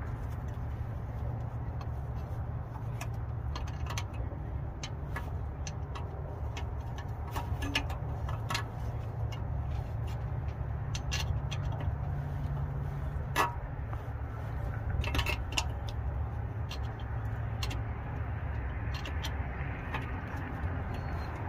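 Scattered metal clicks and light knocks as tools and parts are handled under a truck's engine during refitting of the oil pick-up tube, over a steady low hum.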